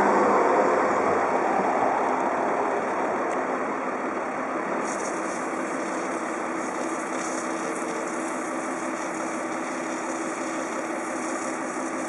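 Track maintenance truck's engine idling steadily, under a louder rolling noise that fades away over the first few seconds as a tram moves off. About five seconds in a hiss joins in, from a worker's spray lance jetting the rails.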